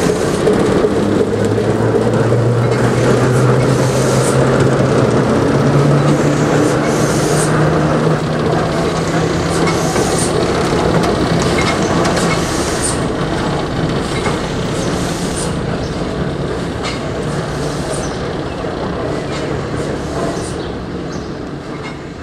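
Class 08 diesel shunter's engine running steadily as the locomotive moves slowly along the track, with light clicks and squeals from the wheels. The sound fades gradually through the second half as it draws away.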